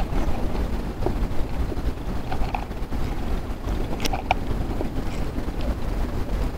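Steady low rumble of wind buffeting the microphone, with a few faint, light clicks, the clearest pair about four seconds in.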